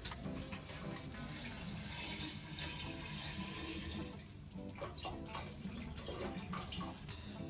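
Water running from a tap into a sink for a couple of seconds, with scattered light clicks and knocks around it.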